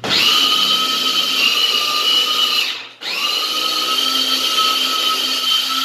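Food processor motor running steadily at full speed, grinding a rice, onion, garlic and herb mixture that has been loosened with oil so the machine runs easily. It stops for a moment about three seconds in, then starts again.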